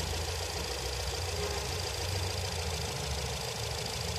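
2012 Nissan Tiida four-cylinder petrol engine idling with a misfire that shakes the engine, here traced to a shorted, oil-fouled spark plug in cylinder 3.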